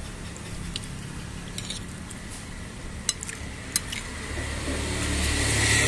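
A few light clinks of a metal spoon against a ceramic plate. About four seconds in, the low engine rumble of a passing vehicle grows louder toward the end.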